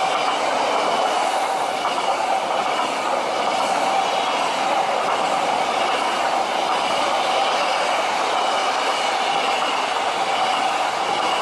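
High-speed electric train passing at speed: a steady rushing noise of wheels on rail and air, with a held whine running through it.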